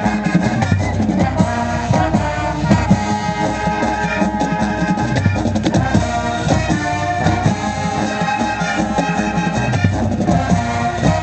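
Marching band playing: brass holding notes over a steady drum beat.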